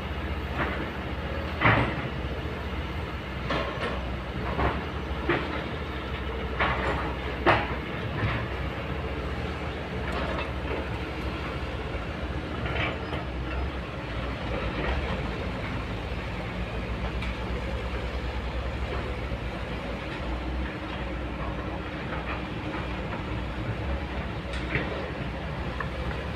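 Kobelco hydraulic excavator's diesel engine running steadily as the machine swings and digs. Sharp metal clanks and knocks stand out several times in the first eight seconds, and once more near the end.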